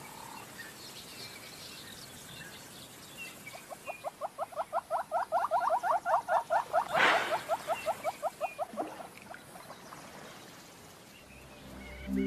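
Yellow-billed hornbill calling: a long run of rapid clucking notes, about six a second, that swells and then fades, given with the wings spread in display. A brief rush of noise cuts across it about seven seconds in, and faint high chirps of small birds come before it.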